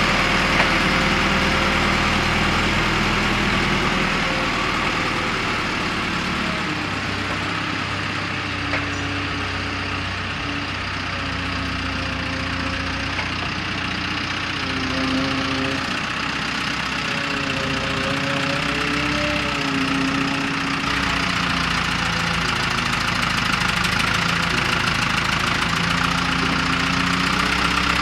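Backhoe engine running steadily, its pitch rising and falling through the middle as it works.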